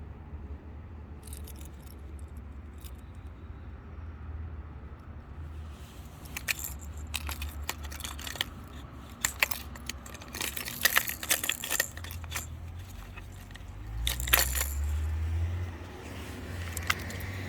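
Hard-bait fishing lures with metal hooks being handled, clicking and clinking against each other and their packaging in a flurry of small clicks from about six seconds in to near the end, over a low steady rumble.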